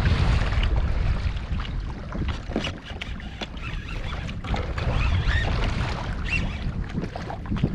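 Wind buffeting the microphone over water sloshing against a kayak hull, with scattered small clicks and knocks.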